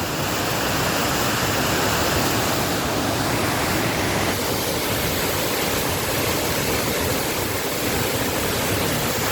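Steady rush of the Cascata delle Marmore waterfall, heavy falling water making an even, unbroken noise.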